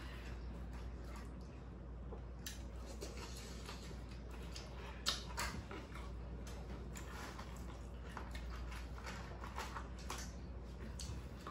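People eating takeout food: wet chewing and lip-smacking with scattered small clicks and taps, the sharpest about five seconds in, over a low steady hum.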